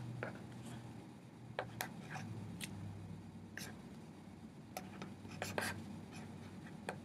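Faint scratches and light taps of a pen writing on a sheet of paper, in short separate strokes, over a faint steady low hum.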